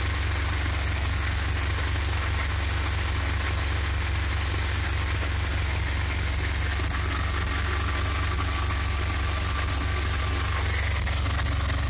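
1969 Dodge A100 van's 318 V8 idling steadily while it warms up after a cold start, heard close up through the open engine cover.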